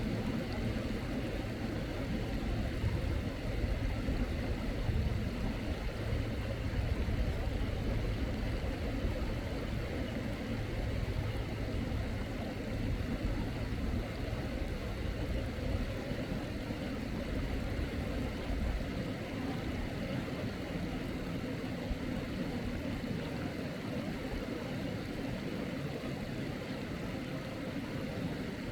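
Mountain stream water running steadily, an even rushing noise with a deep low rumble.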